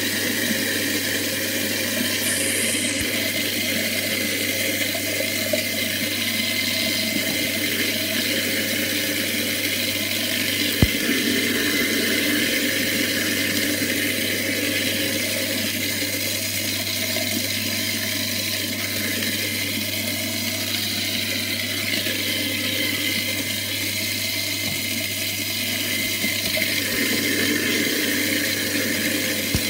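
InSinkErator garbage disposal running with tap water pouring into it: a steady motor hum under the rush of water. One sharp click about eleven seconds in.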